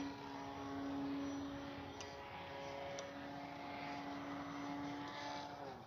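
Brushless electric motor and 12-inch propeller of an FMS Ranger 1800mm RC plane in flight: a steady droning whine that fades and drops slightly in pitch near the end.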